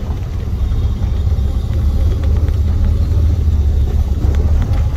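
Steady low rumble of a motor vehicle on the move, with faint ticks and rattles over it.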